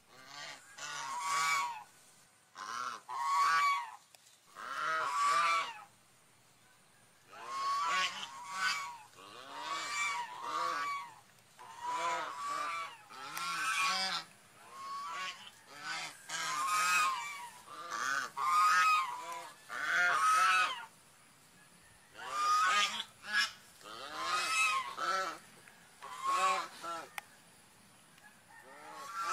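Swan calls: short honking calls repeated in quick clusters, with brief pauses between groups.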